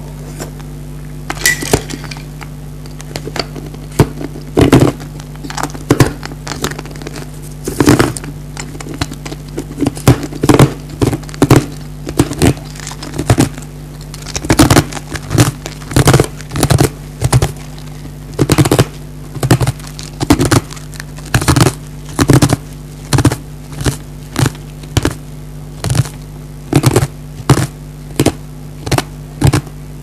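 Ice cubes being crunched between the teeth, close to the microphone: loud, sharp crunches, sparse at first, then a steady run of about one or two a second.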